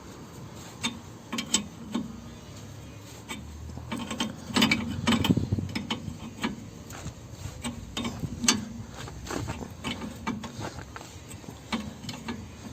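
Wrench turning the forcing bolt of a tie rod end puller: irregular metallic clicks and ticks, with a denser run of them about five seconds in, as the puller presses a worn, knocking tie rod end out of the steering knuckle.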